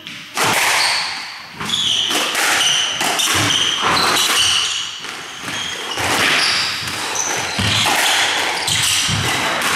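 Squash rally: the ball is served and then struck back and forth, each hit on the racket and the front wall a sharp smack echoing in the enclosed court. Short high squeaks of court shoes on the wooden floor come between the hits.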